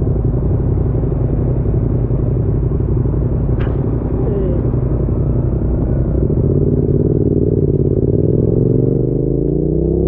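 Motorcycle engine running on the move with a steady low rumble. From about six seconds in, its pitch climbs steadily as it accelerates.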